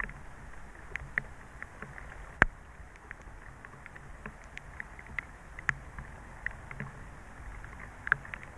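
Heavy rain falling steadily, with scattered sharp ticks throughout and one louder click about two and a half seconds in.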